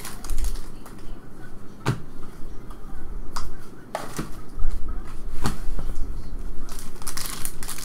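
Trading cards from a freshly opened pack being handled, flipped through and laid on a table, with about five sharp snaps and taps spread through it.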